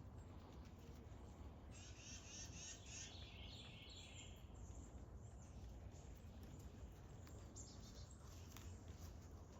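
Faint outdoor ambience with a low steady rumble. A bird sings a quick run of high chirps for about two seconds, starting nearly two seconds in.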